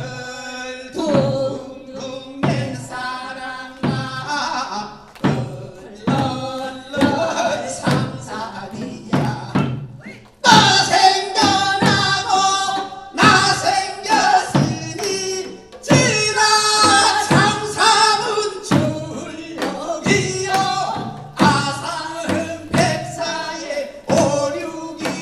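A man and a woman singing Korean folk song (sori) through microphones, with janggu drum strokes keeping a steady beat.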